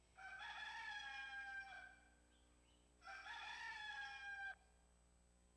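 Rooster crowing twice, each crow a held call of about a second and a half with a slight fall at the end.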